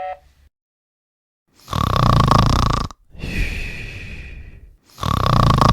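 A man snoring loudly: a long rasping snore on the in-breath, a quieter whistling out-breath, then a second rasping snore starting near the end.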